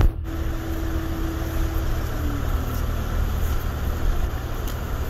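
A vehicle engine running steadily at idle: a low rumble with a hum that dips slightly in pitch about two seconds in.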